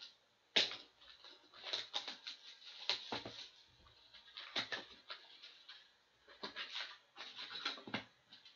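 Trading card box and its packs being opened by hand: an irregular run of rustling, crinkling and tearing of cardboard and foil wrappers.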